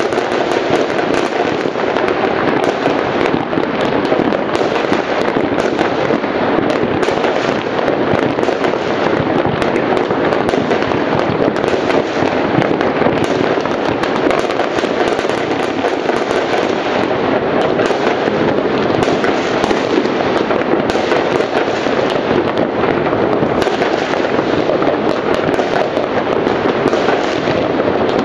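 Many fireworks going off at once, their bangs and pops running together into a dense, continuous crackle with no break.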